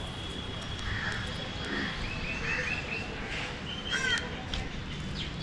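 Birds calling, including a quick series of five chirps about two seconds in, with a faint high steady note behind.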